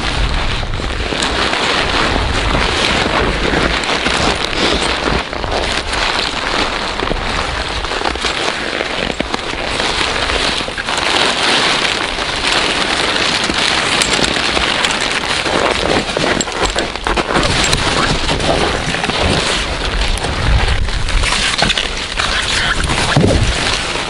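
Rustling and crackling of a nylon ice-fishing tent's fabric as it is unfolded and set up on the snow, a dense, continuous crackle.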